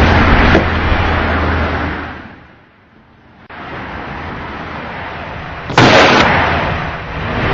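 A loud, rough noise fades away. After a cut, a steady hiss runs on, broken about six seconds in by a sudden loud bang that lasts about half a second and then dies down.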